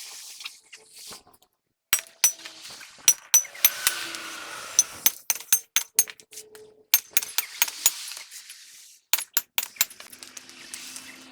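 Repeated sharp metallic clinks and taps of steel tools and parts being handled and struck, some with a brief ring, starting about two seconds in and going on irregularly.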